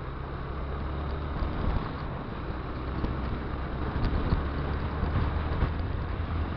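Honda XRE 190's single-cylinder four-stroke engine running steadily as the motorcycle rides along a dirt road, with wind buffeting the microphone and a few louder bumps from the rough surface.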